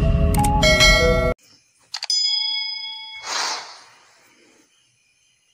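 Outro music that cuts off about a second in, then the subscribe-button sound effects: a mouse click and a bell ding that rings for about a second, followed by a short whoosh that fades.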